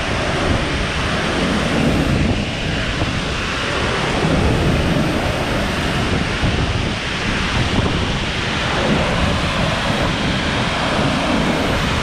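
A tall waterfall pouring onto rocks close by: a loud, steady rush of falling water with a deep rumble underneath.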